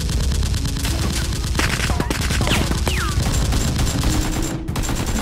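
Rapid automatic gunfire sound effects, a dense run of shots with no break, dubbed over toy blasters being fired. Two short falling whistles cut through the fire midway.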